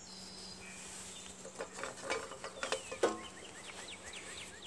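Outdoor ambience: a bird chirping quick, repeated falling notes in the second half, a few scattered clicks and knocks of handling in the middle, and a faint steady low hum.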